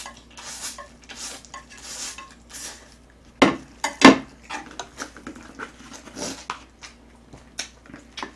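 Close-up chewing of Chapagetti noodles, soft wet smacks about every half second. A little over three seconds in come two sharp clacks of a ceramic plate and chopsticks on the table, then light clicks of chopsticks against the dishes.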